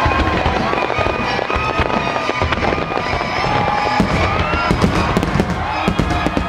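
Aerial fireworks in a finale barrage: a dense, continuous run of bangs and crackles from many shells bursting close together.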